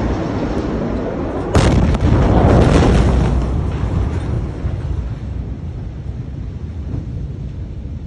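Blast wave of a huge ammonium-nitrate warehouse explosion reaching the building: over a steady low rumble, a sudden loud bang about a second and a half in, followed by a burst of crashing that fades over the next few seconds.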